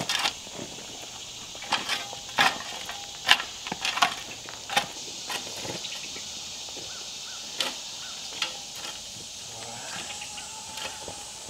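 Steel shovel scraping and scooping clay soil into a trench: a dozen or so sharp, irregular scrapes and thuds, most of them in the first six seconds and only a few after, over a steady high hiss.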